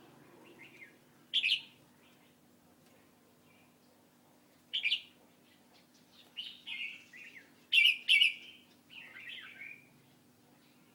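A bird chirping in short calls: two single chirps, then a quicker run of calls with the loudest pair about eight seconds in, over a faint steady low hum.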